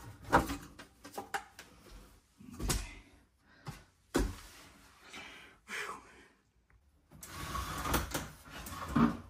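Knocks and clatter of sheet-metal air-handler cabinet parts being handled. There are several sharp knocks, the loudest about half a second in and just before the end, with scraping and rustling between them.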